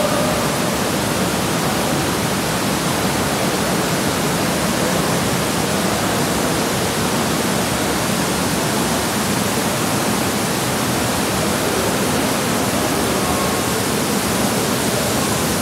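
Steady rush of churning, splashing water from the jets and pouring spouts of thermal spa pools.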